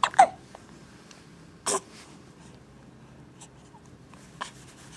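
Hiccups: a short squeaky hiccup right at the start and another sharp one about a second and a half later, then a faint click near the end.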